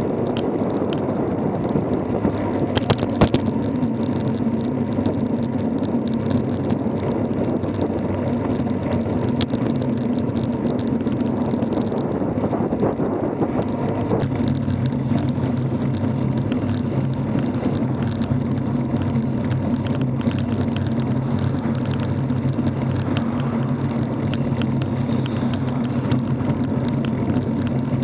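Steady rushing rumble of wind buffeting the microphone and tyres rolling on asphalt, heard from a camera on a moving road bike, with a few sharp clicks and rattles about three seconds in.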